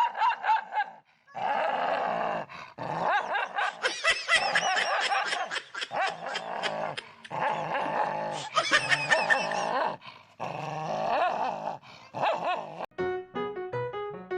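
A dog barking and yipping in quick runs of short calls, broken by a few brief pauses.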